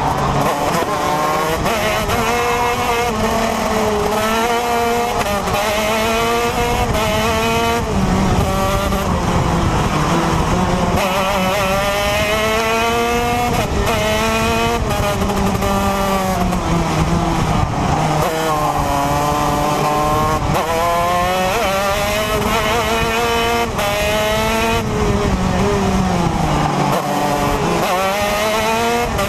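TM 125cc two-stroke KZ2 shifter kart engine at race pace, heard from onboard. Its pitch climbs in repeated steps as it runs up through the gears, then falls away under braking for the corners, over and over.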